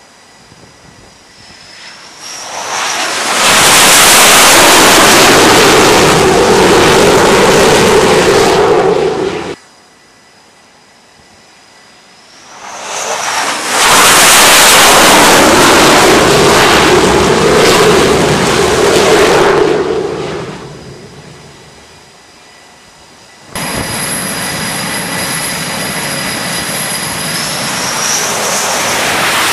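F/A-18 strike fighters landing on an aircraft carrier's flight deck. Twice a jet's engines swell to a loud roar, led in by a rising turbine whine, and hold for several seconds; the first roar cuts off abruptly and the second fades away. A steadier, quieter jet engine noise with a constant high whine follows.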